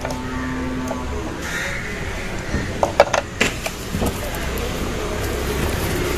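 A few sharp clicks and knocks of washing-machine parts being handled, over a steady low rumble.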